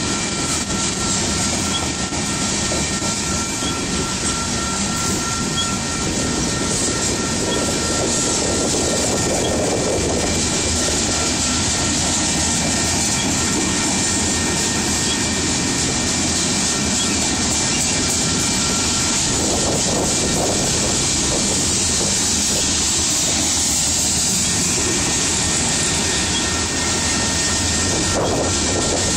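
Union Pacific covered hopper cars of a freight train rolling past close by: a loud, steady rumble and rattle of the cars' wheels on the rails.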